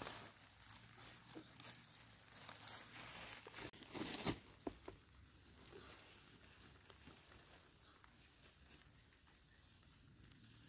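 Rustling and crinkling of watermelon vines, dry leaves and plastic mulch film as hands work through the patch, with a louder burst of rustling about four seconds in.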